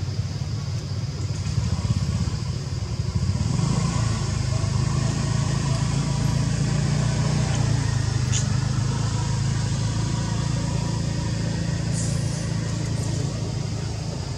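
A motor vehicle's engine running steadily, growing louder about three and a half seconds in. There is a single brief click near the middle.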